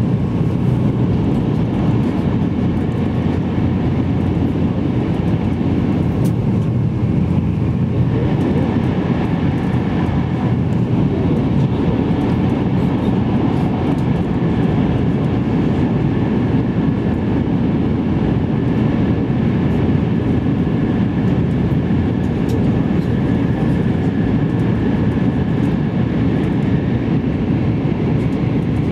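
Steady low rumble of an E2 series Shinkansen running at speed, heard inside the passenger cabin, with a faint high whine growing stronger about eight seconds in.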